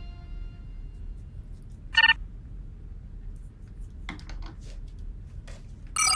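Two short electronic console beeps, one about two seconds in and one at the very end, with a few faint clicks in between as buttons on a small lit control box are pressed.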